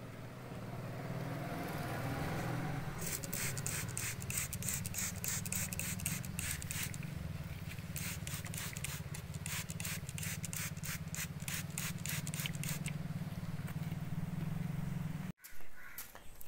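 Trigger spray bottle being pumped by hand: a quick run of short squirts, about two a second, for about ten seconds, over a steady low hum.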